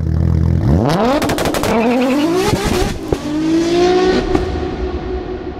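Car engine in a logo-intro sound effect: a low idle, then revving up with a quick run of sharp cracks from the exhaust. It ends in a held note that fades out with echo.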